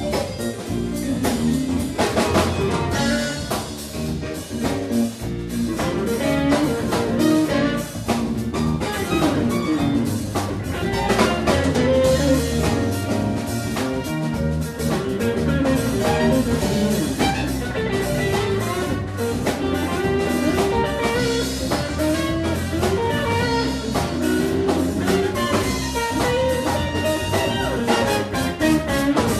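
Live funk-jazz band playing: trumpet over electric guitar, bass guitar and a drum kit keeping a steady beat.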